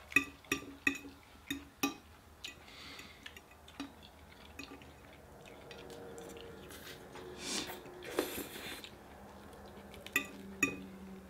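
Eating utensils clicking against dishes: a quick run of about three sharp clinks a second over the first two seconds, then softer scraping and rustling, and two more clinks near the end.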